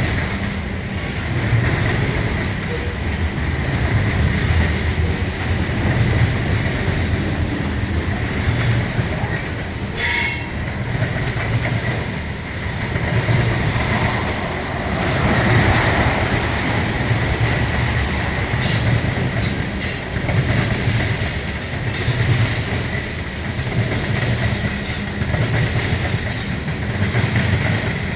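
Freight train rolling past with a steady rhythmic clatter of wheels over the rail joints and a continuous thin squeal from the wheels. Sharper, very high-pitched wheel squeals come in over the last third.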